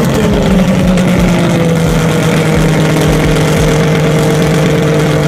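Custom drag trike's engine idling steadily, its pitch settling down in the first second or so after a rev.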